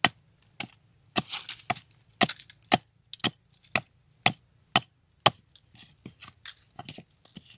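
Repeated sharp chopping strikes of a small metal-bladed hand tool into a mango tree trunk, about two a second and unevenly spaced. The wood is being cut away to reach stem borer grubs tunnelling inside.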